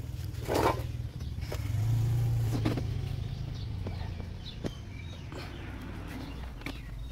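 A motor vehicle's engine drones as it passes, swelling to its loudest about two seconds in and then slowly fading, with a few light clicks and knocks over it.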